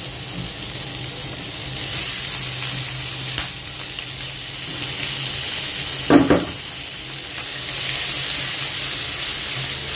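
Prawns frying in hot oil in a pan, with a steady sizzle. There is a short clatter about six seconds in.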